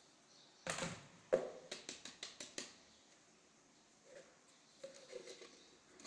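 Small paper and plastic scraps handled and dropped by hand into a plastic dustpan: a short rustle, then a sharp click and a quick run of about six light clicks, then faint rustling near the end.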